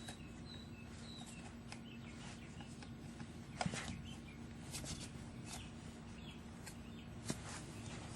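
Faint bird chirps in the first second or so, then a few scattered knocks and taps, the loudest about three and a half seconds in.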